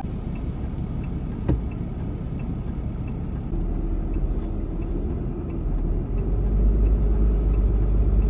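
Pickup truck's engine and road noise heard from inside the cab while driving, with a single sharp click about one and a half seconds in. A deeper rumble builds over the last couple of seconds as the truck rolls onto a rough gravel lot.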